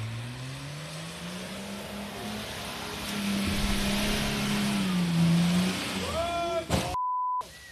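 Lifted off-road 4x4 SUV's engine revving hard under load as it drives through deep mud, its pitch climbing and then holding high. Near the end a man shouts "whoa", and the swear word after it is covered by a short censor beep.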